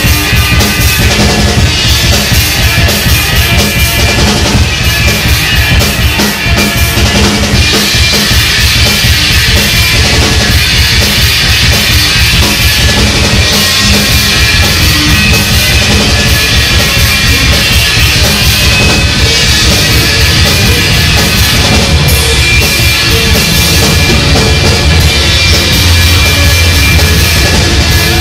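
Rock band playing loudly without singing, with the drum kit prominent.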